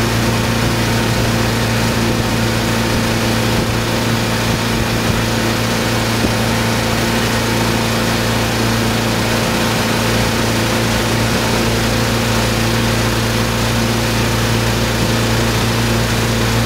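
Motorboat engine running at a steady pitch while towing a water skier, over a constant rush of water and wind noise.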